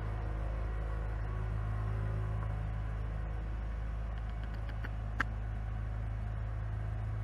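Diesel engines of asphalt paving machinery (paver, roller and dump truck) running steadily with a low, even hum. A single sharp click sounds about five seconds in.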